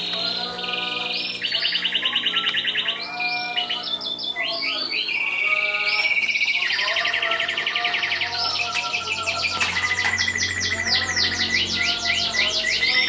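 Domestic canary singing a long unbroken song of rapid trills and rolls, shifting from one trill type to the next every second or two.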